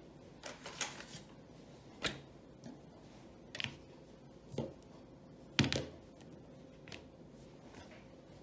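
Glue bottles and license plates being handled and set down on a wooden table: about six scattered knocks and clacks, the loudest about five and a half seconds in.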